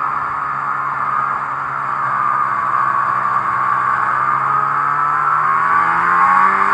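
Arctic Cat snowmobile engine running under way, its pitch sagging slightly and then climbing steadily over the last few seconds as the sled speeds up.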